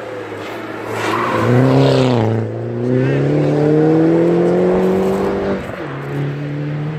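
Race-prepared Mini's engine pulling hard out of a hairpin under full throttle. The revs climb, dip briefly at a gear change a little over two seconds in, climb again, then drop suddenly at the next upshift near the end.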